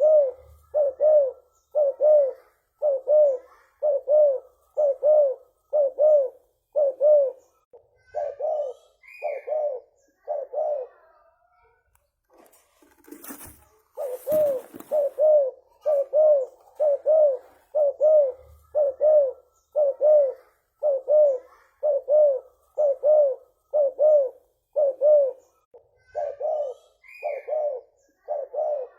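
Spotted dove (tekukur) cooing in a long, fast series of short, even coos, a little over one a second. It breaks off for a few seconds midway, with a brief rustle, then resumes at the same pace.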